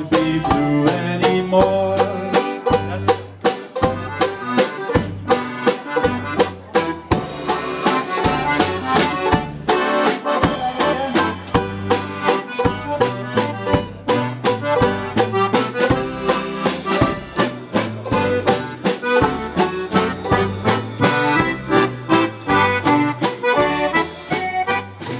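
Live dance band playing an instrumental waltz passage led by accordion over a steady bass-and-chord beat, coming to its final notes at the very end.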